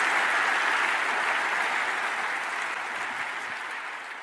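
Large seated audience applauding, the clapping growing gradually quieter.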